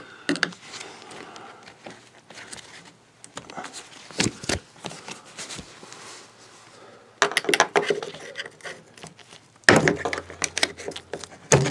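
Screwdriver scraping and clicking against a Schwintek slideout motor and its metal housing as the motor is pried up. A few sharp knocks come around four seconds in, then busier bursts of clicks and scrapes from about seven seconds on.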